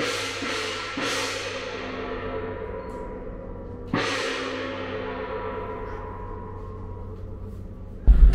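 Background music ringing out on two cymbal crashes about three seconds apart, each decaying slowly with a gong-like shimmer. A loud low rumble cuts in just before the end.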